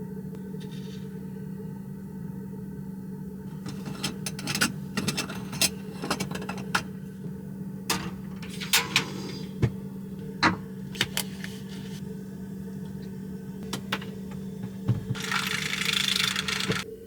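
Clicks, knocks and light clattering of objects being handled over a steady low hum, then a rushing hiss for about two seconds near the end.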